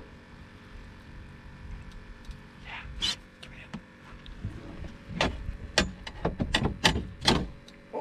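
A string of sharp knocks and clatters, a few at first and then several in quick succession during the second half, as fishing gear and a landing net are handled on a fibreglass boat deck while a hooked fish is brought alongside.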